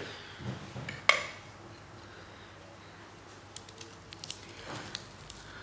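A sharp clatter of kitchenware about a second in, after a couple of softer knocks. Then faint, scattered light crackles as hands press sushi rice onto a sheet of nori on a bamboo rolling mat.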